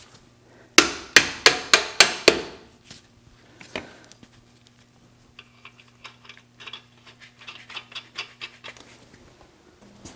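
Six quick hammer blows on the metal of a truck's front brake caliper and hub, each ringing briefly, followed by scattered lighter clicks and rattles of tools. A faint steady low hum runs underneath.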